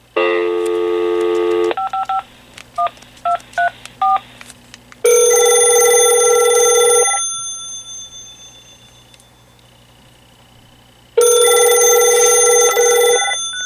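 Vtech 6773 cordless handset on speakerphone giving a dial tone for about a second and a half, then a quick string of touch-tone dialing beeps. A telephone then rings twice, each ring about two seconds long, with a gap of about four seconds between them.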